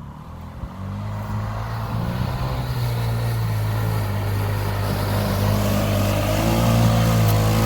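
Honda Pioneer 500 side-by-side's engine running at an even pitch. It comes in about a second in and grows gradually louder.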